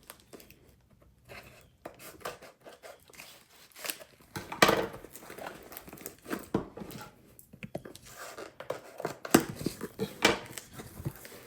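A parcel being unpacked by hand: packaging tearing and crinkling in irregular rustles, with scattered sharp clicks and cracks, the loudest about four and a half seconds in.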